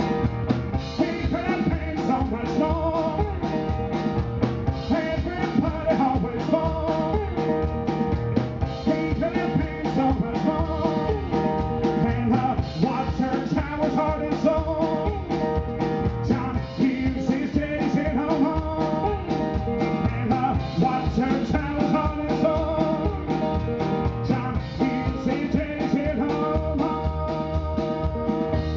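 Live country-blues band playing an instrumental break: a metal-bodied resonator guitar picking a driving line over a fast scraped washboard rhythm and drums.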